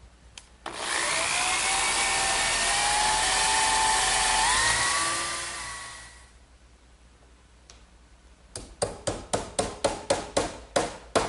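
Electric drill boring a 3/8-inch dowel hole into the wooden table top, its motor whining steadily for about five seconds and then winding down. Near the end, about a dozen quick sharp taps, roughly four a second, drive a wooden dowel into the hole.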